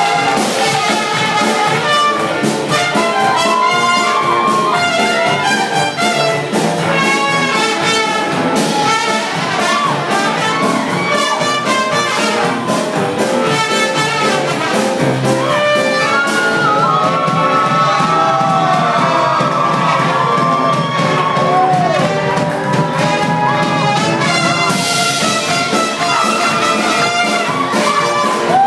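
Live band playing jazz, with a brass horn carrying the melody in bending, sliding phrases over keyboard and a steady percussive beat.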